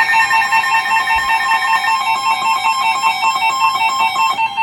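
Weather radio alert tone sounding ahead of a new severe thunderstorm warning: a loud, high electronic tone pulsing rapidly and evenly.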